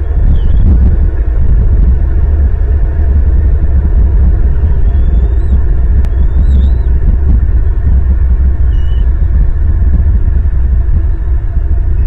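Steady loud low rumble on an outdoor nest-camera microphone, with a few faint high chirps scattered through it.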